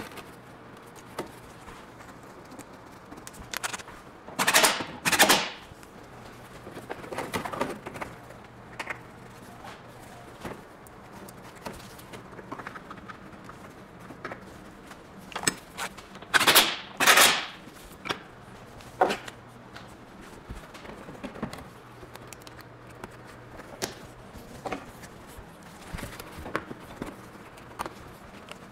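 Tool clatter from car reassembly work: scattered clicks and knocks, with two pairs of short, loud rushing bursts about four and sixteen seconds in, over a faint steady hum.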